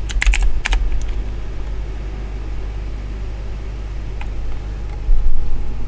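A few computer keyboard keystrokes in the first second, as a terminal command is finished and entered. After that comes a steady low electrical hum, with a short low thump about five seconds in.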